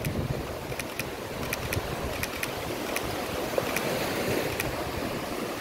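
Sea surf washing up on a sand beach, with wind on the microphone, and faint sharp ticks every half second or so.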